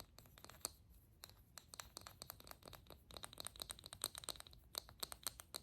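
Fingernails tapping and scratching on a small plastic toy key card: many light, quick clicks, coming faster from about halfway through.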